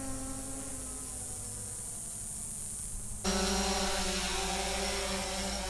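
DJI Phantom 4 quadcopter's motors and propellers whining in flight, heard from a camera mounted on the drone itself. The pitch wavers slightly, then about three seconds in the sound jumps abruptly to a louder, steadier whine as the drone hovers low.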